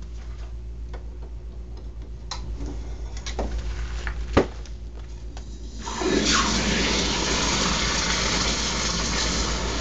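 A few knocks, one sharp, then a red-hot 1075 steel wakizashi blade is plunged into a tub of warm salt brine about six seconds in, hissing and boiling loudly for about four seconds: the first dip of an interrupted water quench (yaki-ire).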